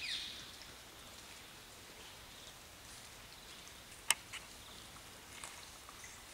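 A pack of dholes feeding at a sambar deer carcass: faint scattered ticks and clicks over a steady outdoor background hiss, with one sharp click about four seconds in. A brief falling whistle sounds right at the start.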